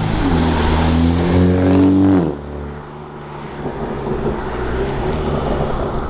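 Mini John Cooper Works Clubman with a Remus race exhaust pulling away in its quieter green mode. The exhaust note rises in pitch for about two seconds, drops off suddenly, then runs on more quietly as the car moves away.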